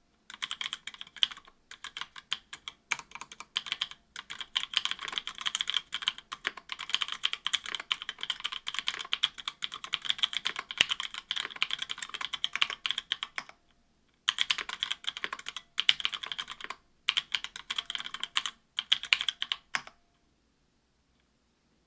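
Fast typing on a mechanical keyboard with stock Kailh Pro Burgundy 70 g linear switches in an aluminium plate, under GMK keycaps; a steady stream of keystrokes with a few short pauses. The typing stops about two seconds before the end.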